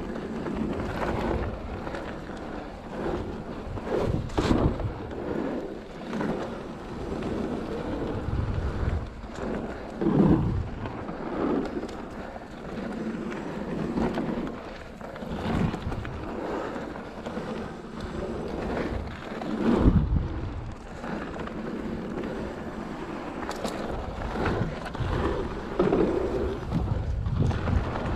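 Mountain bike rolling fast down a dirt and gravel trail: tyres on loose ground, the bike rattling over bumps, and wind on the microphone, with several louder knocks from landings and rough patches, the biggest about 20 seconds in.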